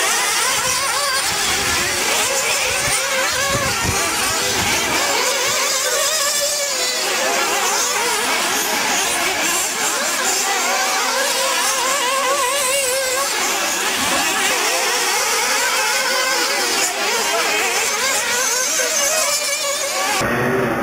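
Several 1/8-scale nitro RC buggy engines racing together, their high-pitched buzz rising and falling over and over as the cars accelerate and brake. The sound changes abruptly near the end.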